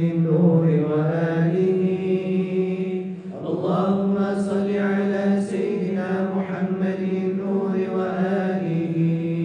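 Voices chanting a Sufi dhikr in long, held melodic lines, with a short break and re-entry about three seconds in.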